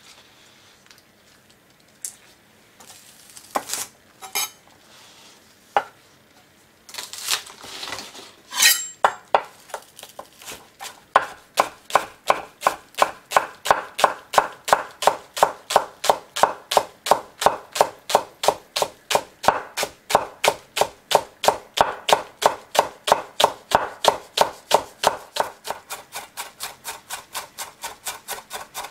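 Chef's knife slicing negi (Japanese green onion) finely on a wooden end-grain cutting board, in a fast, even rhythm of about three strokes a second. Before that, a few scattered knocks as the onion is laid out on the board.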